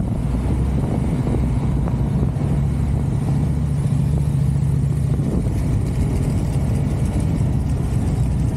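Motorcycle engine running steadily at cruising speed with road and wind noise, heard from a camera on the bike. A low, steady engine tone grows stronger for a couple of seconds in the middle, then eases.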